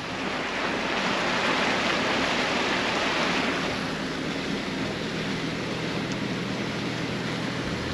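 Ford Raptor pickup wading through deep floodwater, heard from inside the cab: a steady rushing wash of water against the truck, strongest a few seconds in, with a low engine hum beneath.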